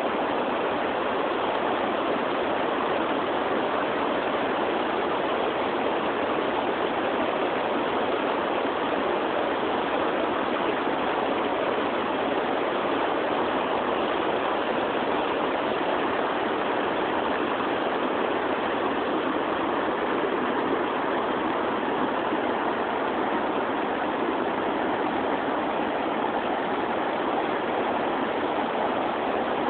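Steady rush of fast-flowing river water, an even noise that does not change.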